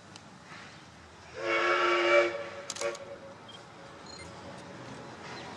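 Steam locomotive's whistle sounding one loud blast of about a second, a chord of several tones, about a second and a half in, as the train approaches.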